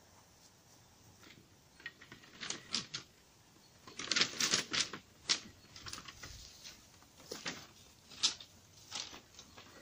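Wooden slats of a folded yurt lattice wall clattering against each other as it is gathered up and lifted in one armful: a run of sharp clacks and knocks that starts about two seconds in and is thickest about four seconds in.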